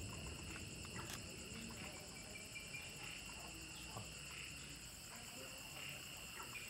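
Faint night insect chorus of crickets, a steady high chirring in several layers, with a few faint scattered ticks.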